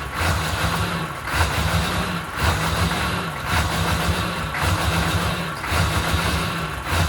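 1997 K3500's 6.5-litre V8 diesel idling rough, its note surging and sagging about once a second. Fuel pressure is good with no air in the fuel, and the batteries, grounds and fuel solenoid test good, so the cause of the rough idle is not yet found.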